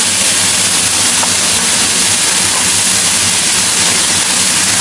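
Loud, steady hiss of water poured from a metal pitcher onto a hot teppanyaki griddle, boiling off into a cloud of steam.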